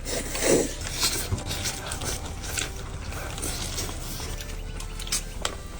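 Scattered clicks and knocks of tableware as people eat, over a steady low hum, with a short voice-like sound about half a second in.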